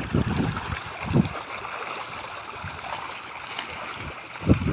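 Outdoor wind buffeting the microphone in low gusts, about a second in and again near the end, over a steady rushing hiss.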